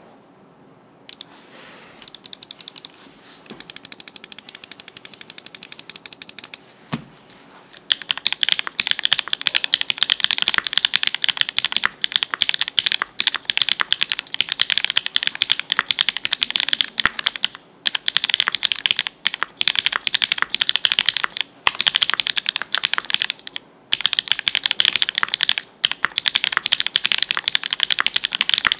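Typing on a mechanical keyboard: a GEONLAB F1-8K with an FR4 plate, GMK keycaps, and switches built from Cherry black housings with Novelkeys Cream stems, with all foam removed from the board. A few scattered keystrokes lead into fast, continuous typing broken by a few short pauses.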